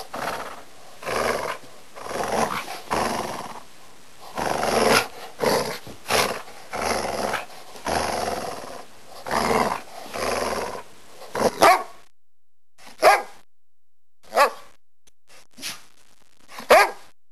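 A dog growling and barking in rough bursts about once a second, then a few short, sharp single barks spaced a second or two apart in the last few seconds.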